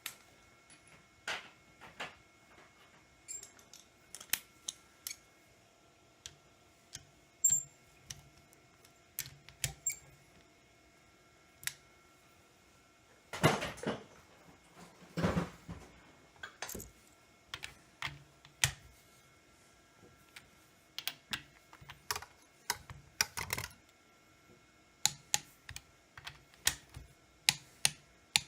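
Irregular metallic clicks and clacks of hand tools and engine parts being handled during engine short-block assembly, with a longer scraping rattle about halfway through.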